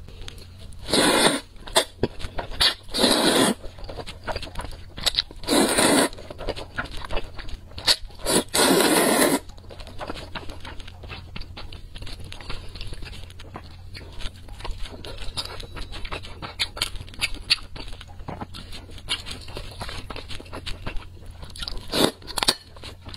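Close-miked noodle slurping: four loud slurps of thick noodles in spicy sauce in the first ten seconds, then quieter wet chewing with small clicks, and another slurp near the end.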